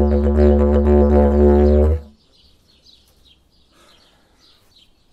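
Homemade PVC-pipe didgeridoo with a silicone mouthpiece playing a low steady drone, its overtones wavering in a rhythm. It stops abruptly about two seconds in, leaving faint bird chirps.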